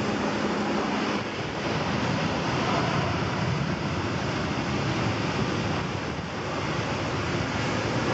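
Heavy shore-break waves breaking and churning, a steady rush of surf noise.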